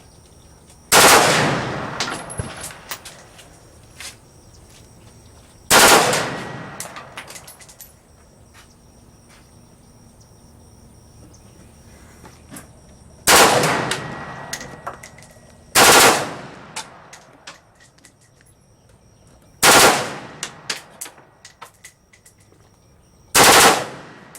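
Rifle on full automatic firing six short bursts a few seconds apart, about 1, 6, 13, 16, 20 and 23 seconds in, each burst trailing off in an echo.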